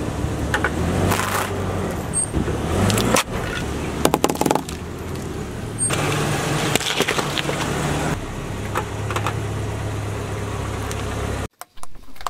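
A car engine running slowly as its tyre rolls over and crushes small objects, with a steady low hum and a scatter of sharp cracks and crunches.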